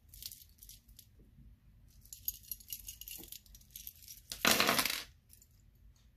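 Silver-tone metal charms and beads on stacked beaded bracelets clinking and jingling lightly as they are handled, with one louder jangle lasting about half a second a little past the middle.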